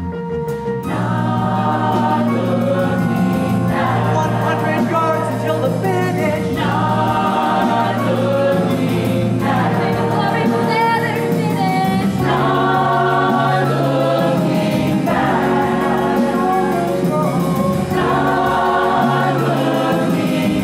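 Musical-theatre ensemble singing together as a full chorus over instrumental accompaniment. The music swells up about a second in.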